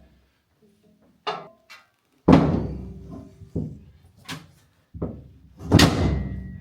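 A series of heavy thuds and knocks at uneven intervals, the two loudest trailing off with a brief ring.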